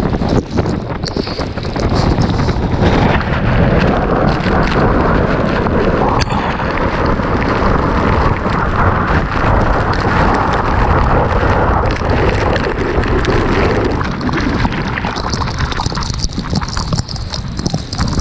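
Violent storm wind buffeting a GoPro's microphone, with rain, as the outskirts of a rain-wrapped tornado pass by. The wind strengthens about two seconds in and eases a little near the end.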